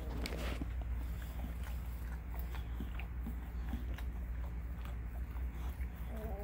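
Boxer mother licking her puppies clean: a run of soft wet licking and smacking clicks over a steady low hum.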